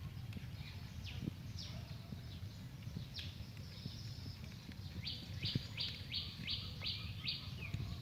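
Birds chirping: short, sharply falling notes here and there, then a quick run of about seven down-slurred chirps in the second half.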